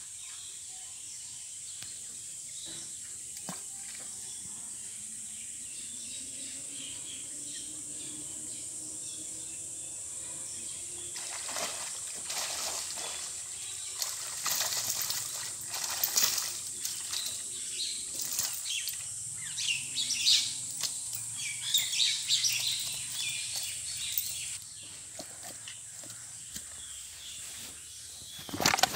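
Cast net being hauled out of a pond, with water splashing and running off the mesh and fish flapping in the wet net at the water's edge. This comes as irregular splashes and slaps starting about eleven seconds in and dying down a few seconds before the end. Before that there is only a steady background hiss.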